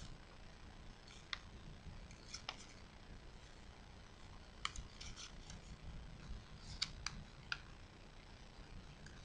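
Origami paper crinkling and crackling as it is folded and pressed by hand: a scattering of short, sharp crackles, a few of them in quick clusters, over a faint low hum.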